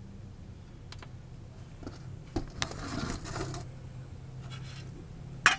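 Light scattered clicks and clinks of small metal parts and tools being handled, with rustling in between and a sharper click near the end.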